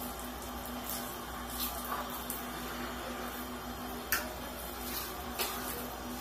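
A person eating instant noodles from a plastic bowl with a fork: chewing and slurping noises with a few short sharp clicks, the loudest about four seconds in, over a steady low hum.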